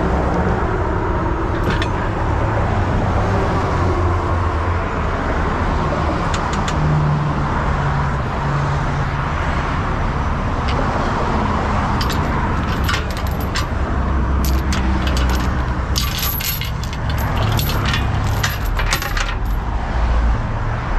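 Metal tow chains clinking and rattling as they are hooked to a wrecker's underlift at a truck's front bumper, with many sharp clinks in the second half. Under it, a steady rumble of engines and freeway traffic.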